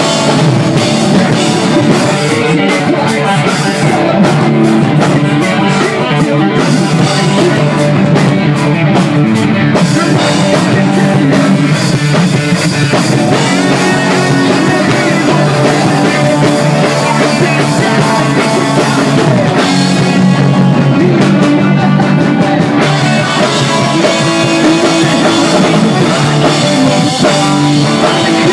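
Live rock band playing loud: electric guitar and drum kit, with a singer over the top.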